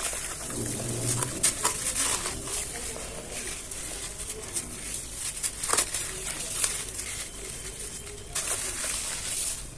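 Dry chunks of black sand-cement crumbling and crunching, a run of crisp crackles and sharp snaps with gritty grains trickling between them.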